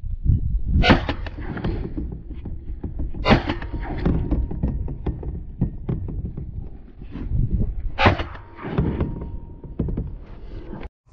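Three shotgun shots at flying geese, about a second in, about two and a half seconds later, and again near the end, each a sharp crack with a short echoing tail, over low rumbling from the kayak and the gun being handled.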